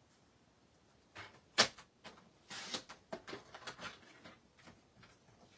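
Sliding-blade paper trimmer cutting a sheet of paper: a sharp click about a second and a half in, then a short scraping slide and a run of smaller clicks and paper rustling as the cut pieces are handled.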